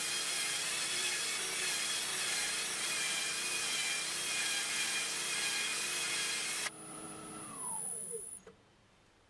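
Sandpaper rasping against a spalted ash bowl spinning on a wood lathe, over the lathe motor's steady whine. A couple of seconds before the end the sanding stops abruptly and the motor's whine falls in pitch as the lathe spins down to a stop.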